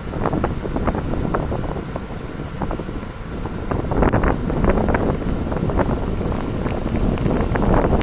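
Typhoon wind buffeting the microphone in rough, gusting blasts, strongest in the low rumble, growing louder about halfway through.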